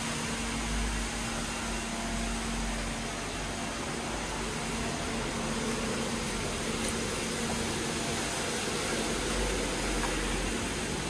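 Steady ventilation hum and air noise of an underground parking garage, with a low rumble from a car driving slowly along the aisle near the end.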